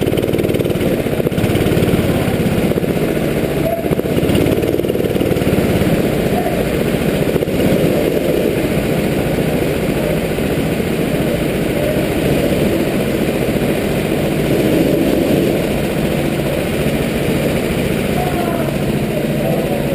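Go-kart engine heard close up from onboard, running at low revs and idling. Near the end it picks up revs as the kart pulls away.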